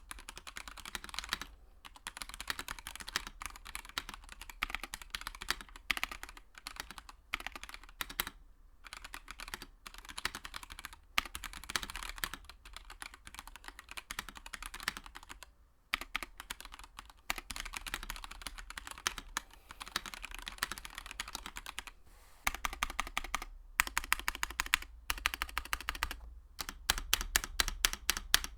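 Typing on a Monstargears Ninja 87 Arc XD Lite tenkeyless mechanical keyboard with yellow switches, PBT keycaps, an aluminium plate and an acrylic housing: runs of keystrokes broken by short pauses, getting faster and denser near the end.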